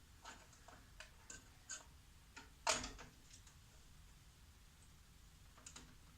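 Light clicks and taps of a graphics card knocking against a PC case and its expansion slot while it is fitted in, with one louder knock about two and a half seconds in.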